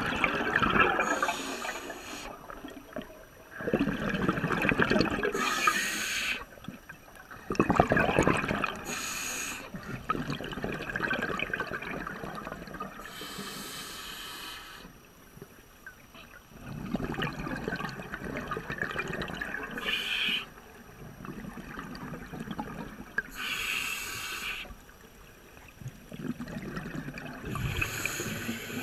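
Scuba diver breathing through a regulator underwater: a hissing inhalation every four to five seconds, each followed by a longer gurgling rush of exhaled bubbles.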